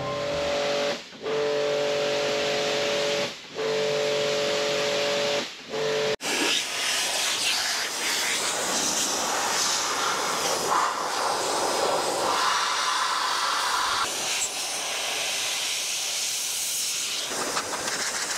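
Motorcycle air blower forcing a stream of air over a washed motorcycle, a loud steady rushing hiss that blows the water off after washing. In the first six seconds the hiss carries a steady whine and drops out briefly three times.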